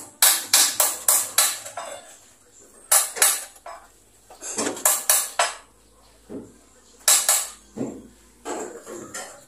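Light metallic jingling and clinking in several short bursts of quick strokes, with pauses between them.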